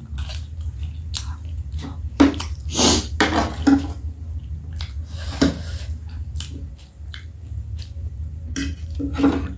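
Close-up chewing and wet mouth sounds of a person eating spicy noodles and momo, broken by a few sharp clicks, over a steady low hum.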